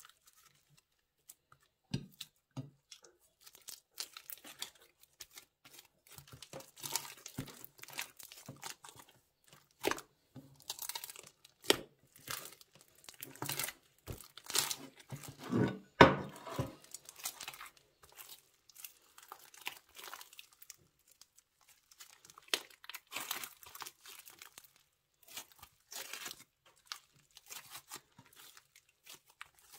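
Plastic bags crinkling and crackling in irregular short bursts as they are handled with slime, with the loudest crackle about halfway through.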